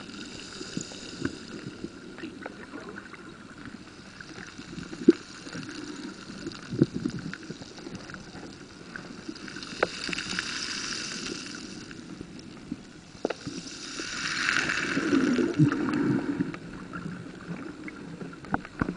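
Muffled underwater noise from a camera held in the water: sloshing and gurgling with scattered sharp clicks, swelling louder twice, about ten and fifteen seconds in.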